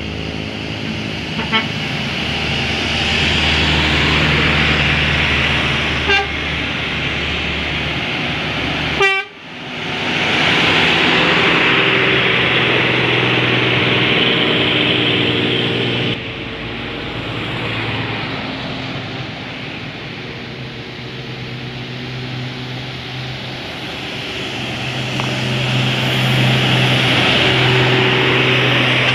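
Multi-tone 'telolet' (Basuri) bus air horn playing a tune, a run of held notes at changing pitches, over the running engine of a bus. The sound cuts out sharply for a moment about a third of the way in.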